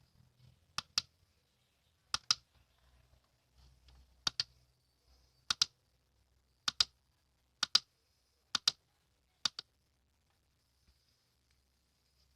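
Small switch clicked in quick press-and-release pairs, about eight times at intervals of roughly a second, then stopping about ten seconds in.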